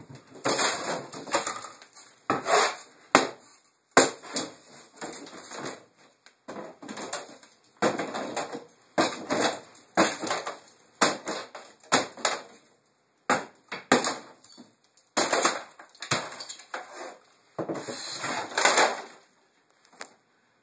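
Wooden kitchen cabinets being smashed apart with a wooden pole: a long string of hard, uneven blows, about one a second, with boards cracking and splintering.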